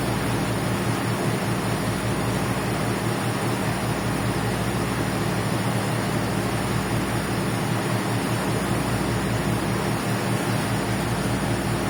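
A ferry's engines droning steadily, with a constant rushing noise of wind and water over the low hum.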